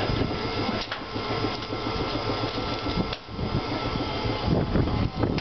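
Steady mechanical running noise from standing vintage Kotoden electric railcars' onboard equipment: a dense, chattering clatter over a low rumble, with a faint steady whine. It drops away for a moment about three seconds in.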